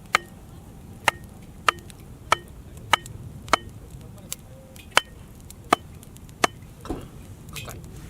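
Repeated sharp chopping strikes, about ten of them a little over half a second apart, each with a short metallic ring.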